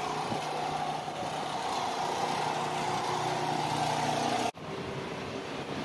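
An engine or motor running steadily, a constant hum with a droning mid-pitched tone. It cuts off suddenly about four and a half seconds in, and a quieter steady hum remains.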